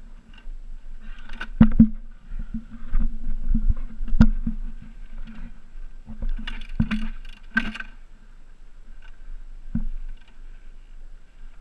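Yamaha dirt bike engine running at low revs while the bike is paddled and pushed over a rough section of a dirt climb, with several sharp knocks and thumps from the bike and boots on the ground.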